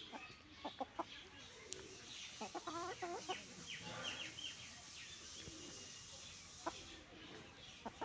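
Free-range hens clucking softly as they forage, with a quick run of clucks about two and a half seconds in and higher short calls just after. A few short sharp taps are scattered through it.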